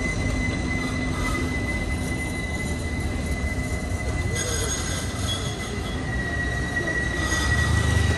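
Istanbul T1 tram running: a low rumble under a steady high-pitched whine that drops a little in pitch about six seconds in. The rumble grows louder near the end.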